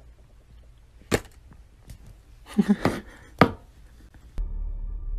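A few sharp plastic knocks and clatters from a cup stuck over a cat's head as the cat thrashes and jumps about.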